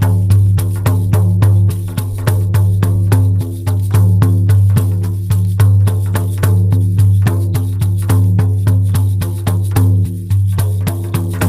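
Shamanic frame drum beaten with a beater in a steady, fast rhythm, each stroke ringing with a deep, booming resonance.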